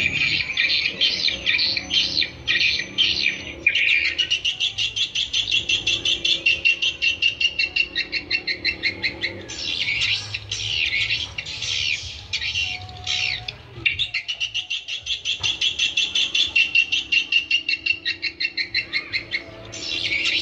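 Swiftlet calls from a lure recording used to attract swiftlets: fast, buzzy trills of rapid clicks alternating with louder chirps, repeated in phrases with short breaks.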